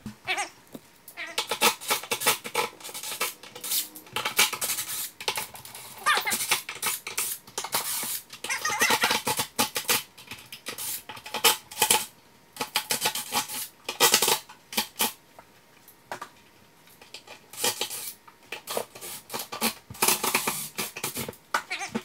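Cordless Milwaukee FUEL impact driver hammering, backing out the screws that hold a 12-inch subwoofer in its carpeted box. It goes in about eight bursts of rapid rattling clicks, each a second or two long, with short pauses between screws.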